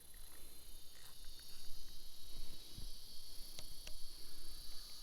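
Steady high-pitched chorus of insects droning without a break, with a couple of faint clicks about three and a half seconds in.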